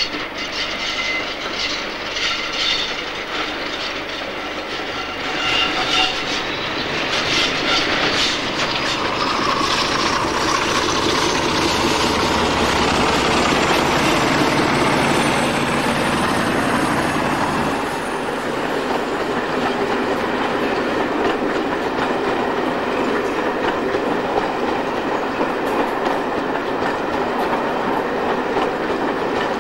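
Class 47 diesel locomotive passing under power with a train of coaches. Its engine rumble builds to its loudest about halfway through, then the coaches roll by with rhythmic wheel clicks over the rail joints and a thin high squeal from the wheels on the curve.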